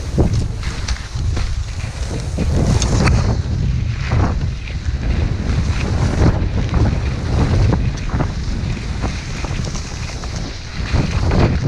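Wind buffeting the action camera's microphone in a steady low rumble, over the repeated scrape and hiss of skis turning on snow.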